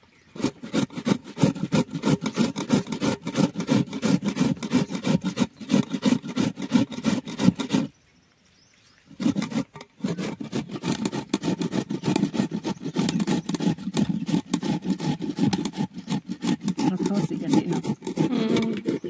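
Ash gourd being grated on a flat metal hand grater over an aluminium pot: quick, rhythmic rasping strokes, several a second, with a pause of about a second a little before the middle.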